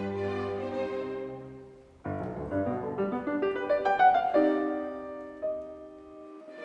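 Recorded classical music for piano and orchestra. A sustained string chord fades out, then a solo piano enters suddenly about two seconds in, plays a rising run of notes that peaks near the middle, and settles into a held chord that dies away.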